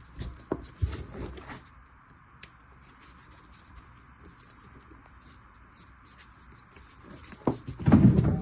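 Hand-tool work on a cordless reciprocating saw being taken apart: a few clicks and knocks, then a louder clatter of parts and housing being handled near the end.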